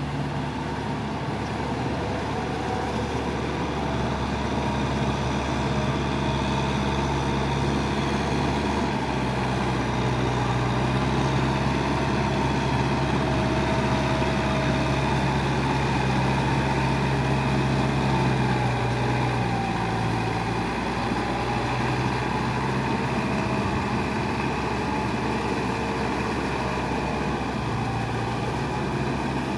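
Kubota farm tractor's diesel engine running steadily while working a muddy rice paddy, its engine speed shifting slightly a couple of times.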